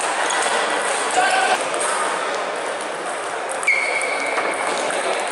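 A table tennis rally: sharp clicks of the celluloid ball off the bats and table, two of them marked by brief high ringing tones about a second in and near four seconds, over a steady echoing din of a sports hall with other tables and voices.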